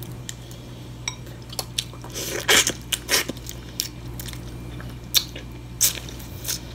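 Close-up eating sounds of picking steamed blue crab: scattered short smacks, sucks and shell clicks as meat is pulled and sucked from the shell, the loudest about two and a half seconds in. A steady low air-conditioner hum runs underneath.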